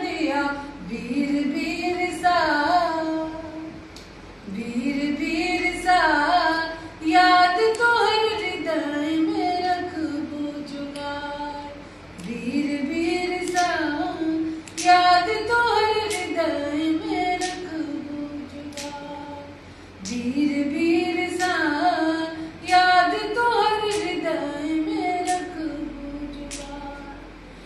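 A woman singing a folk song unaccompanied, in long held phrases that each start with an upward swoop, with short breaks for breath between them.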